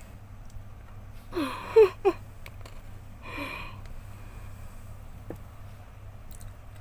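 A woman's short non-speech vocal sounds. About a second and a half in comes a brief gasp-like squeal that rises in pitch, and about two seconds later a breathy exhale. A few faint clicks are heard over a steady low hum.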